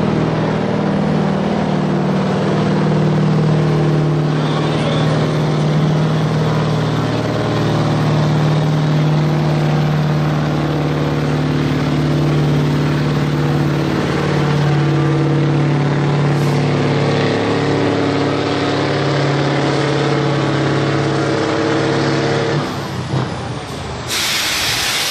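Scania truck's diesel engine running flat out under heavy load while pulling a weight-transfer sled, at a steady pitch. Near the end the engine drops off and a loud air hiss follows, like air brakes.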